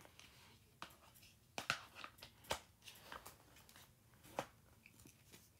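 Hard plastic parts of a tie-dye spinner kit clicking and knocking together as they are handled and fitted onto the base: a scattering of single sharp clicks, a few of them louder.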